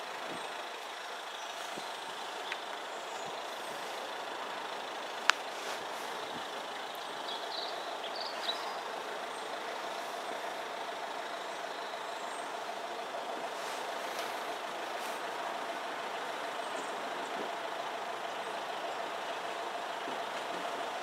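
Class 172 Turbostar diesel multiple unit approaching in the distance: a steady engine-and-rail noise with a held hum, growing slowly louder. A single sharp click about five seconds in.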